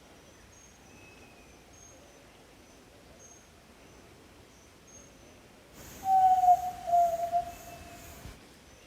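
Yellow-legged tinamou (jaó-do-sul) giving a single long, low whistle, gliding slightly down in pitch, about six seconds in. Faint high chirps run through the background.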